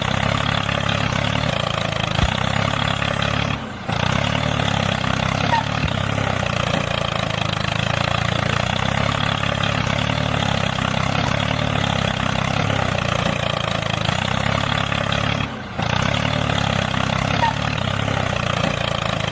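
A motor running steadily with an even hum, cut off for a moment twice.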